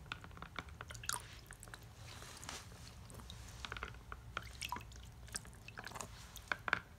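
Small splashes and drips of water in a clear plastic tub as a small plastic L.O.L. Surprise baby doll is dunked and squeezed underwater to fill it so it will spit water. A scattered series of soft splashes and light clicks, one a little louder near the end.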